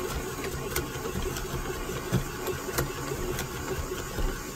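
KitchenAid stand mixer's motor running steadily at about half speed, turning the plastic dasher inside the frozen ice cream maker bowl as custard is churned. A few sharp ticks come through here and there over the hum.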